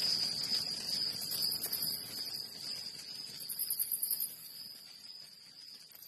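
Crickets chirping: one steady high trill, joined twice by a higher, fast-pulsing insect trill, all slowly fading out.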